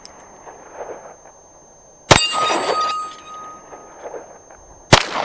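Two handgun shots about two and a half seconds apart at an AR500 steel plate rack. The first is followed by the ringing of a struck steel plate, a hit, which fades over about a second and a half.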